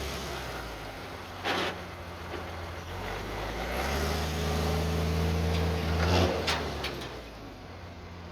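M35A2 deuce-and-a-half truck's multifuel turbodiesel engine running, with one short sharp noise early on. It revs up for about two seconds and then drops back with a couple of knocks.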